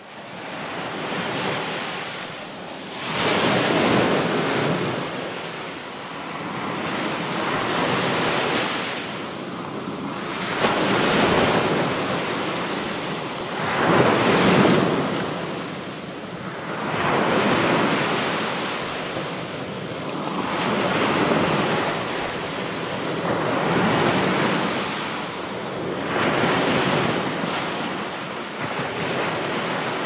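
Ocean surf breaking and washing ashore, fading in at the start, then swelling and ebbing in a fresh surge every three to four seconds.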